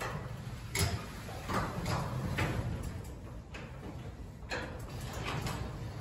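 Sectional steel garage door being raised by hand along its tracks for a balance test: the rollers rumble and clatter irregularly in the metal tracks, with a sharp knock about a second in.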